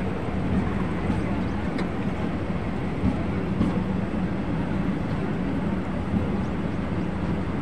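Passenger train running at speed, heard from aboard: a steady rumble of wheels on rails and rushing air.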